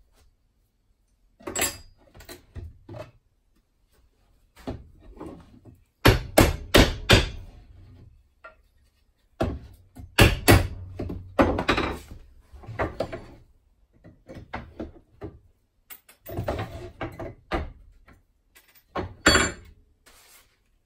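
Hammer knocking on the wooden sides of an old light box to knock apart its brad-nailed trim, in several clusters of strikes and wooden thuds. The loudest is a quick run of about four blows about six seconds in.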